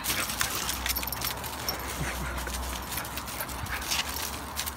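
A dog moving about at close range: scattered clicks and rustles over a low steady hum, with a couple of faint short whines about two seconds in.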